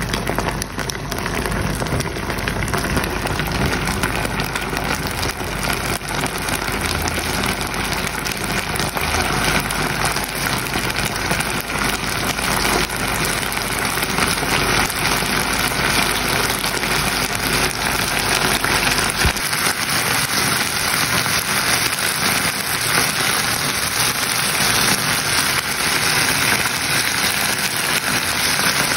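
Small fish braising in sauce in a frying pan, sizzling and bubbling with a dense, steady crackle. A low hum underneath stops about two-thirds of the way through.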